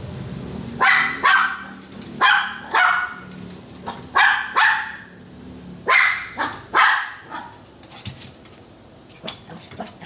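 A dog barking, mostly in pairs of sharp barks: four pairs in the first seven seconds, then a few fainter, quicker barks near the end.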